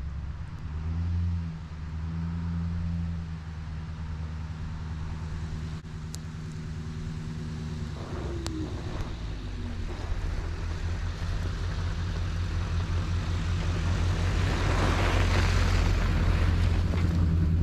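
Pickup truck engine running as the truck approaches up a snowy road, growing louder as it passes close by, with tyre noise on the snow near the end.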